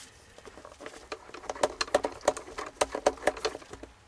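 Phillips screwdriver turning out screws from a plastic instrument case: a run of small, irregular clicks and scratchy scrapes, thickest in the middle.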